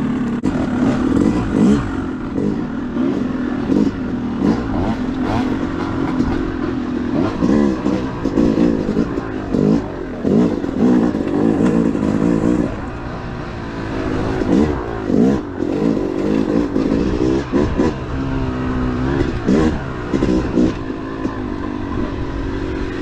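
2013 Yamaha YZ250 two-stroke single-cylinder dirt bike engine being ridden, its revs rising and falling again and again, with scattered knocks and rattles from the bike.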